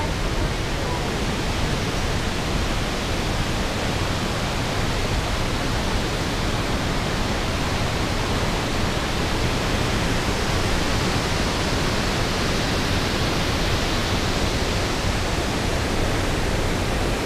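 Fast creek water rushing through a rocky canyon, a steady even rush.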